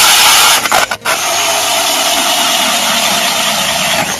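Cordless drill driving an ice auger through lake ice: a steady motor noise mixed with the sharp new blades shaving ice, with a brief break about a second in.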